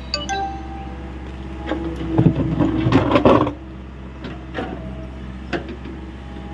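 Hyundai 85A SMART excavator's diesel engine running steadily, with a burst of clanking and scraping from the working machine about two to three seconds in and a few sharp knocks after.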